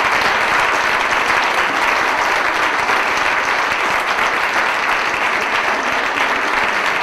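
Audience applauding steadily, a dense, even sound of many hands clapping.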